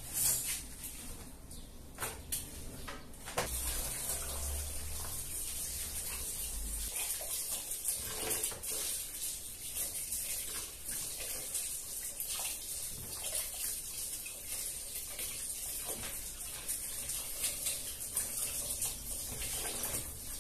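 Kitchen tap running, water splashing into a bucket as vegetables are rinsed by hand under it. A few knocks and scrapes come first; the running water starts about three and a half seconds in and goes on steadily.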